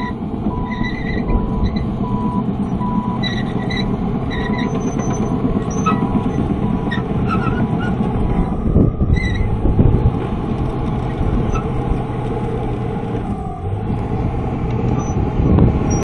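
Komatsu D41P crawler bulldozer's diesel engine running as the machine travels, with clanking from its steel tracks and one sharp clank about halfway through. Its reversing alarm beeps steadily, about two beeps a second, fading out by about halfway.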